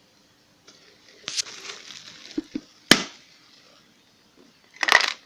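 A new electric kettle being handled: a brief rustle, a couple of dull knocks, a sharp click, then a loud cluster of clacks near the end.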